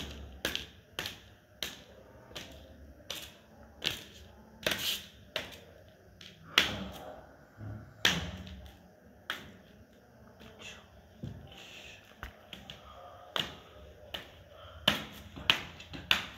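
Hard plastic toy animals knocking against each other and the floor: a run of sharp, irregular taps and clacks, about one or two a second.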